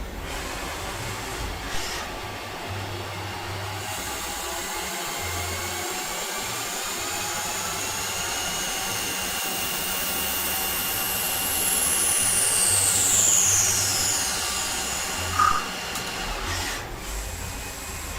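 CNC lathe running while it machines, a steady machine noise with a high whine that falls in pitch partway through and a short sharp squeak near the end.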